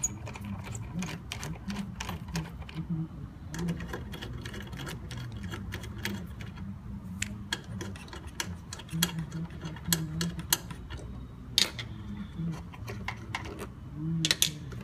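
Irregular light clicks and knocks of parts being handled and worked loose, with a few sharper knocks near the end.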